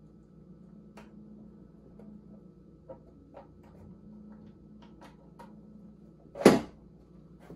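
Light clicks and taps of fingers working the unscrewed bottom cover of a Ninebot Max electric scooter loose from the deck, over a faint steady hum. One loud knock about six and a half seconds in.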